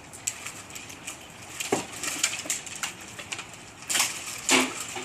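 Tree branches and twigs crackling and snapping as a roped limb scrapes through them, with louder cracks about two seconds in and twice near the end.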